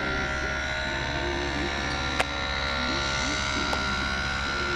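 Air Bike ultralight's engine and propeller running steadily at high power during its take-off run on grass. A sharp click comes about two seconds in.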